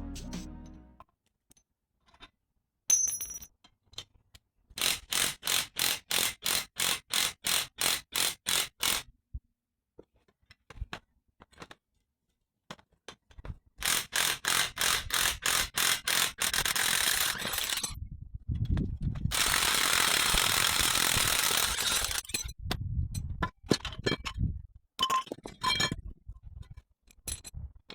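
Work on a car's front strut with an impact wrench (rattle gun) and hand tools: a sharp metal knock, a run of about three clicks a second, then long bursts of rapid hammering from the impact wrench, with scattered metallic knocks near the end.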